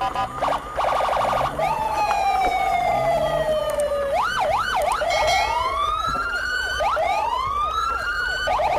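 Several emergency-vehicle sirens sounding at once: a fast two-tone and warble first, then a slow falling wail, then quick up-and-down yelps and rising wails overlapping.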